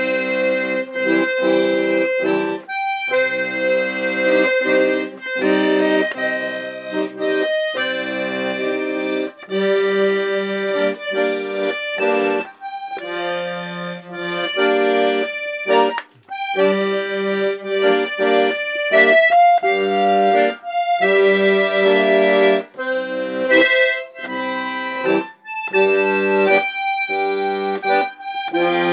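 Piano accordion played solo, a tango tune with a melody over chords in short phrases separated by brief pauses.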